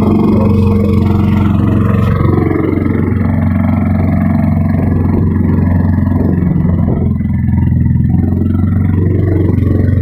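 Boat engine running steadily at an even low pitch, heard from on board while underway.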